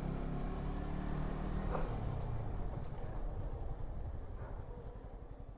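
Motorbike engine running while riding, then easing off: about two seconds in it gets quieter and settles into a slow, even putter of firing strokes as the bike slows down.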